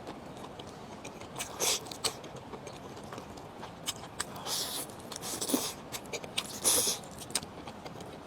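Close-up eating sounds of a person chewing cooked mutton, with scattered short smacks, the loudest about four and a half and nearly seven seconds in.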